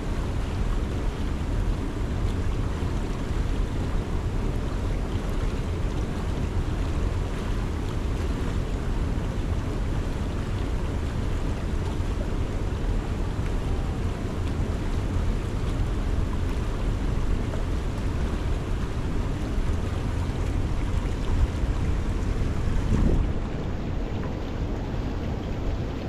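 Steady rush of flowing river water, with wind rumbling on the microphone. Near the end there is a brief louder bump, after which the highest hiss drops away.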